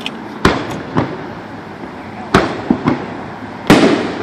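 Aerial fireworks shells bursting: a string of sharp bangs, the loudest near the end, with a rumbling echo between them.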